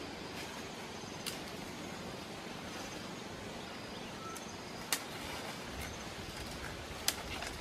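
Steady outdoor background noise, with three sharp clicks or snaps: about a second in, near the middle, and near the end.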